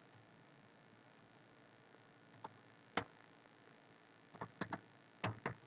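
Faint, sparse keystrokes on a computer keyboard: single taps about two and a half and three seconds in, then a quick run of taps near the end.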